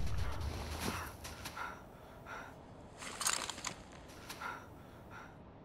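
The low, rumbling tail of a gunshot dying away over about a second, followed by several short, faint breaths and gasps.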